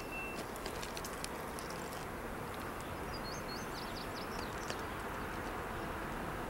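Steady outdoor background hiss and rumble, with a bird singing a short chirping phrase about three seconds in.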